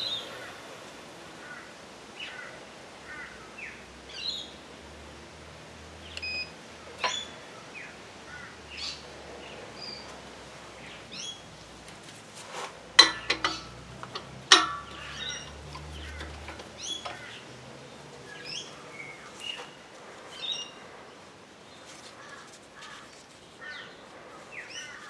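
Birds chirping and calling on and off, with a faint steady high whine that stops about seven seconds in. A few sharp knocks around thirteen to fifteen seconds in are the loudest sounds.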